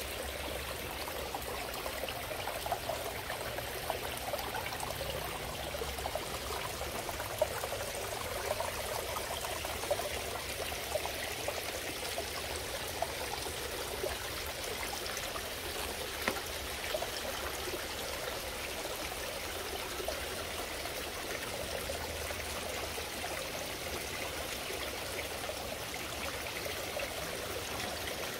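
Water from a tiered garden fountain splashing and trickling steadily into a koi pond, with small scattered drips and splashes.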